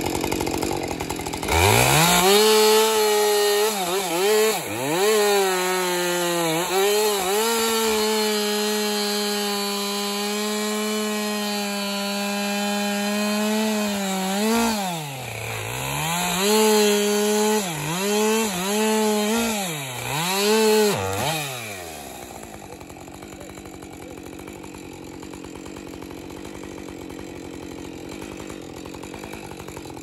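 Husqvarna two-stroke chainsaw running at full throttle while cutting through a fallen spruce trunk. The engine note sags and recovers several times as the chain bogs under load in the cut. About 22 seconds in, the saw comes off throttle and the sound drops to a much quieter low running.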